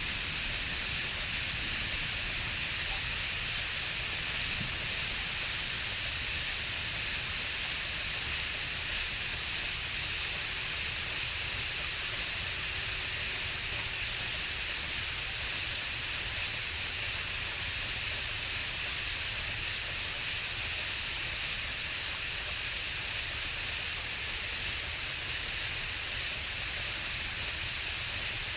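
Dense night chorus of frogs and insects, blending into one steady high-pitched hiss-like drone, with a low steady rumble underneath.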